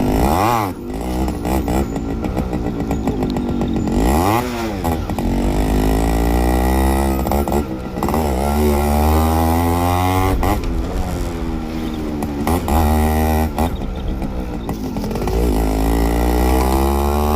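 Yamaha RX100's two-stroke single-cylinder engine being revved: a few quick blips at first, then the pitch climbing repeatedly over two or three seconds and dropping off sharply each time.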